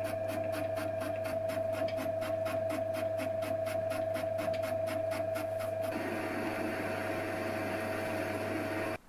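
Metal-turning lathe taking roughing cuts in mild steel bar: a steady hum with a regular ticking about five times a second, changing about six seconds in to a rougher cutting sound, then cutting off suddenly near the end.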